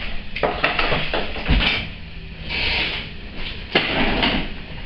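Old bricks knocking and scraping as they are handled and set down into a small trash can: a run of clunks and a rasping scrape, with the sharpest clunk about four seconds in.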